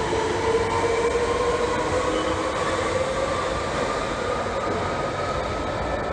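London Underground Central Line 1992-stock tube train pulling out of the platform, its traction motors whining with a rising pitch over a steady rumble as it accelerates away into the tunnel. The sound eases off a little in the second half.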